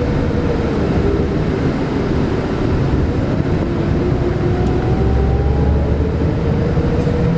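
Coach engine and road noise heard from inside a moving bus: a steady low rumble with a faint whine that drifts slowly in pitch.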